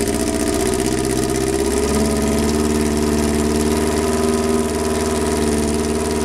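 Kawasaki GPX750R's inline-four engine idling steadily; the engine note shifts slightly about two seconds in.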